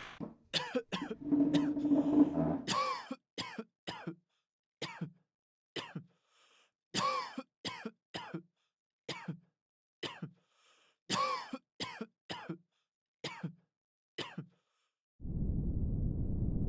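A person coughing repeatedly, short separate coughs roughly once a second with brief gaps between them. About 15 seconds in, the coughing stops and a steady low rushing noise begins.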